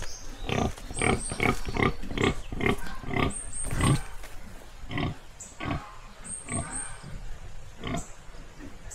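Pregnant gilt grunting repeatedly: a quick run of short grunts, about three a second, through the first half, then only a few spaced grunts.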